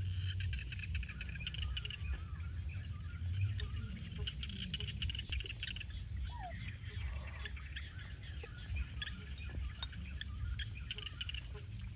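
Rural outdoor ambience: insects trilling steadily with a few short bird chirps, over a low rumble and some light scattered clicks.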